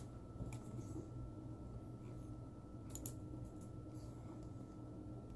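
A person chewing a mouthful of peanut butter and jelly sandwich with the mouth closed: a few soft wet mouth clicks, the sharpest a quick pair about halfway through, over a steady low hum and a faint high whine.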